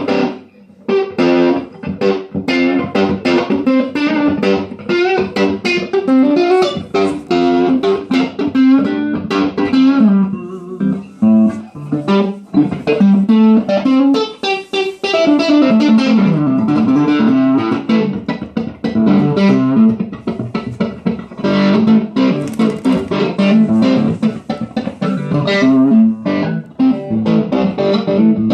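Electric guitar played through a 6V6-powered, 20-watt 1x12 tube combo amplifier: a continuous melodic passage of many quickly picked single notes and short phrases.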